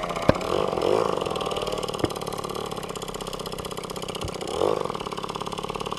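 Small two-stroke moped engine running while under way, a steady buzzing putter that swells briefly as the throttle opens about a second in and again near the end. A couple of sharp clicks sound early on.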